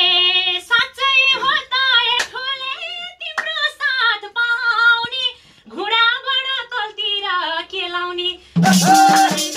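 A woman singing a Nepali dohori verse solo and unaccompanied, in ornamented phrases with short breaths between them. Near the end the madal drum, tambourine and clapping come back in.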